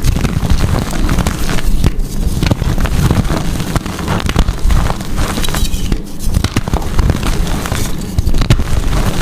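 Blocks of gym chalk being crushed, a dense run of crunches and crackles with many small snaps over a low rumble, pausing briefly a few times.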